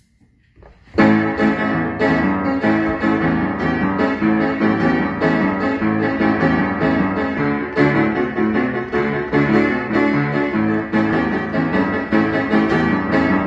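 Upright piano played with both hands, chords under a melody, starting abruptly about a second in after a brief pause.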